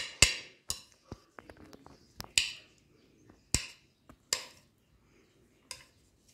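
Green chopsticks clicking and scraping against a plate of instant noodles: a scattering of sharp, irregular taps, about ten of them, a fraction of a second to a second apart.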